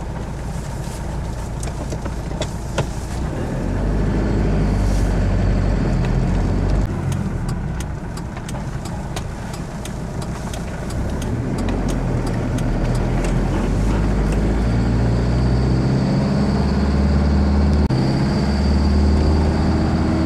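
Camper van engine running and road noise heard from inside the cab while driving through town, the engine note rising about four seconds in, easing off for a few seconds, then building again. Scattered light clicks and rattles in the cab through the middle.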